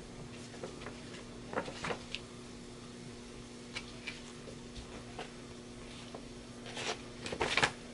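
Paper handling: a large folded poster is unfolded, giving scattered light rustles and a louder run of crinkling about seven seconds in. A faint steady hum sits underneath.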